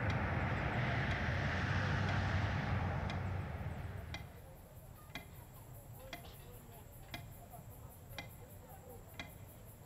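A steady rushing noise with a low hum fades out over the first three or four seconds. After that a clock ticks about once a second, with a faint high insect chirring behind it.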